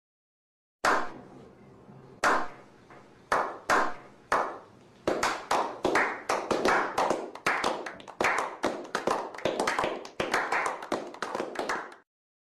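Slow clap: single hand claps spaced more than a second apart, quickening to a steady two or three claps a second after about five seconds, then stopping abruptly near the end.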